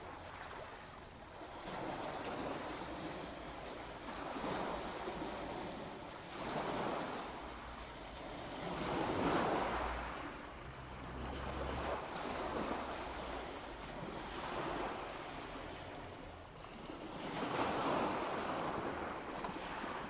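River waves washing up onto a shingle foreshore and drawing back over the stones, swelling and fading every few seconds.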